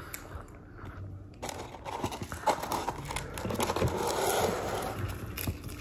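Paper fast-food packaging rustling and crinkling as food is handled, with many small clicks. It starts after about a second and a half and is loudest about four seconds in.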